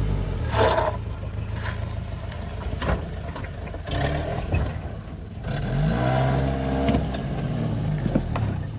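Off-road SUV engine running and revving up and down in short bursts as the truck crawls over rough trail, with a few sharp knocks along the way.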